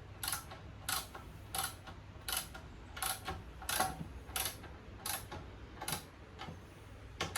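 Ratchet wrench clicking in a steady rhythm, about one click every two-thirds of a second, as a nut on the mini bike frame's top plate is tightened.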